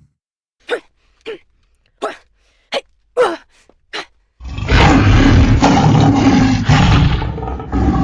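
Six short, sharp sounds about half a second apart, then a loud animal-like roar used as a monster sound effect, which starts suddenly about four and a half seconds in and continues to the end.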